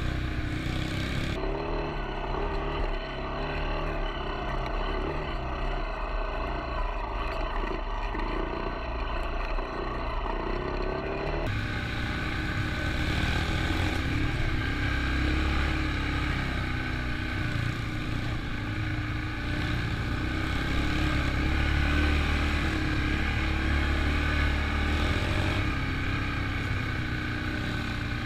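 Off-road vehicle engines running steadily while riding trails. The character of the engine noise changes abruptly twice, about a second and a half in and again about eleven seconds in.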